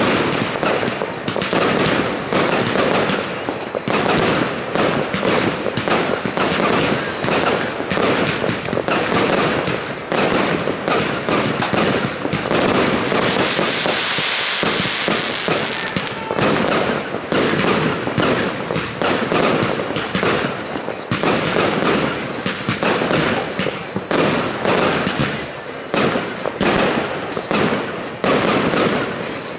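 Fireworks going off in rapid volleys: a dense, unbroken run of bangs and bursts, with a few seconds of steady hissing crackle in the middle.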